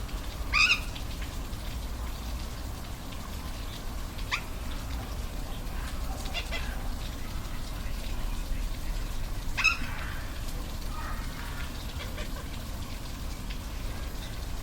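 Steady rush of a waterfall, with an animal giving a few short, high calls over it, the loudest about half a second in and again about ten seconds in.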